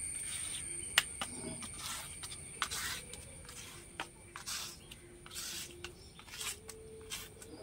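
Coconut-garlic chutney paste being ground and scraped on a flat stone grinding slab with a stone roller: repeated short rasping strokes, with a sharp knock about a second in. A steady thin high whine runs underneath.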